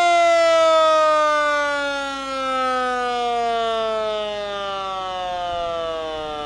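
The siren of a 1953 American LaFrance fire truck winding down after being sounded: one long tone with rich overtones, its pitch falling slowly and steadily as it gets gradually quieter.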